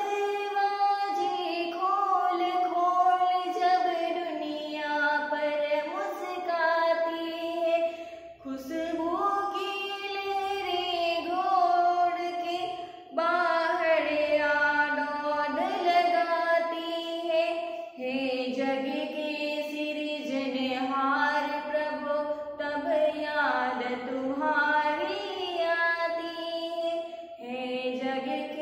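A woman singing a Hindi poem solo and unaccompanied, to a slow melody of long held and gliding notes in phrases broken by short breaths.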